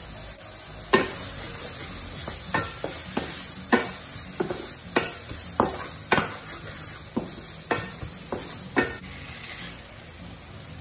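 Wooden spatula stir-frying lotus root slices in a stainless steel frying pan: sharp knocks and scrapes against the metal about once or twice a second over a steady sizzle, stopping about a second before the end.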